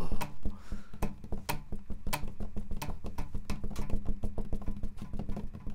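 A flurry of irregular light clicks and taps, several a second, over a low steady hum.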